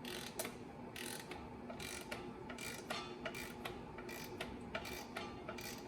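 Ratchet wrench clicking in short repeated strokes, roughly one burst of clicks a second, as the clutch bolts are run down a little at a time.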